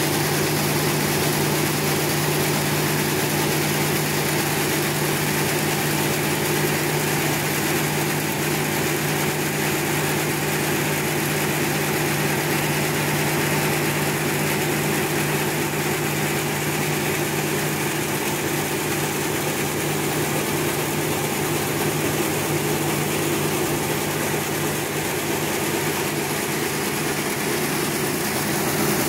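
Couscous extrusion production line machinery running steadily: a continuous mechanical hum with a constant low tone under a dense machine noise.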